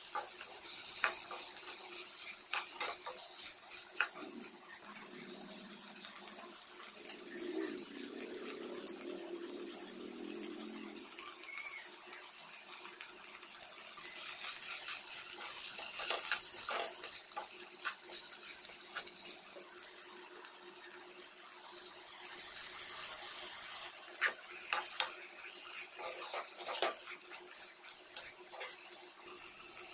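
A steel spoon stirring and scraping boiled potato pieces in a pan, knocking against the pan many times, over a steady hiss.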